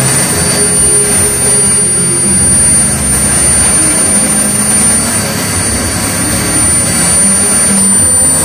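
Small gas-turbine engine of a radio-controlled model jet running steadily, with a high, even whine.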